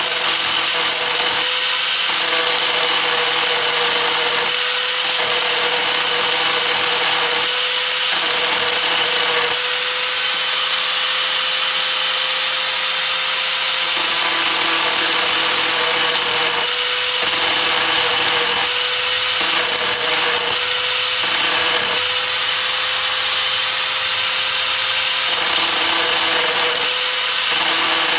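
Small handheld rotary grinder running steadily with a constant motor whine, its bit grinding at a bag caster in repeated passes that change the pitch of the scraping every second or two.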